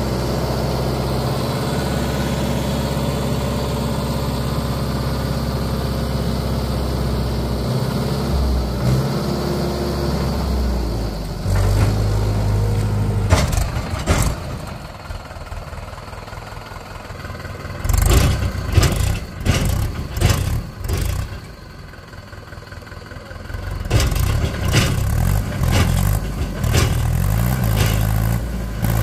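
Mahindra Yuvo Tech 575 DI tractor's diesel engine running steadily under load, then revving in repeated surges with drops back to idle while the trailer is being tipped. There are a couple of sharp knocks about halfway through.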